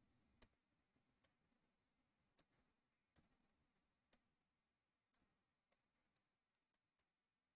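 Computer mouse button clicking: about nine single, sharp clicks at uneven intervals of roughly a second.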